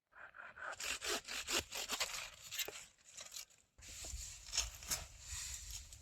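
Quick, uneven scraping or rubbing strokes, with a low rumble joining about four seconds in.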